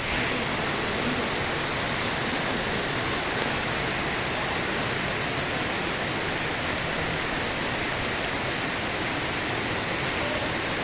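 Steady rushing of water at a rain-fed pond, an even hiss that neither rises nor falls.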